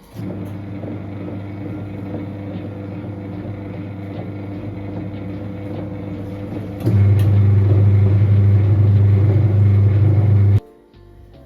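An electric motor humming steadily. It gets clearly louder about seven seconds in, then is switched off abruptly near the end.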